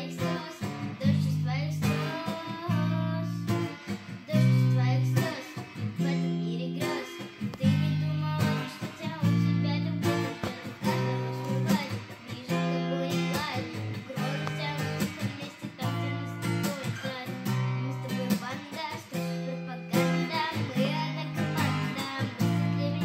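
Acoustic guitar played in a steady rhythmic accompaniment, with bass notes and strummed chords recurring about once a second.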